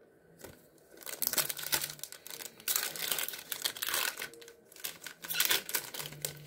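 Wrapper of a 2020 Absolute Football trading-card pack crinkling and tearing as it is ripped open by hand, in a string of quick rustling bursts starting about a second in.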